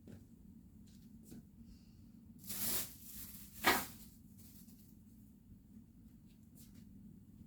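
Quiet handling noises: small clicks, a rustle about two and a half seconds in, and a sharper scrape or brush a second later, the loudest sound.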